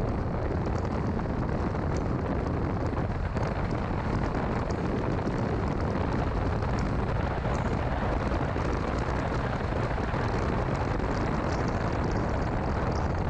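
Steady low rumble of a 2006 Mini Cooper S on the move, with road, wind and engine noise blended together and faint scattered ticks throughout.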